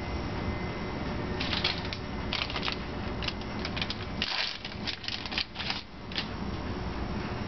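A run of short crackling, rustling clicks from hands handling lab items, over the steady hum of a laminar flow hood's fan.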